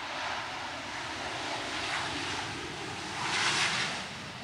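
Jet engines of a Boeing 737-700 (CFM56-7B turbofans) in a rushing roar as the airliner rolls out on the runway just after touchdown. The roar swells to its loudest about three and a half seconds in, then eases.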